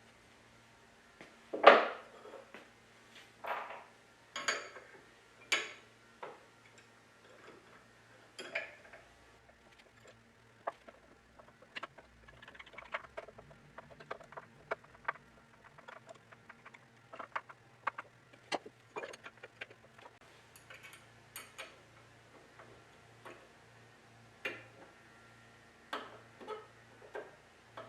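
Brass screws and a brass retainer plate being handled: irregular small metal clicks and clinks, with a louder knock about a second and a half in.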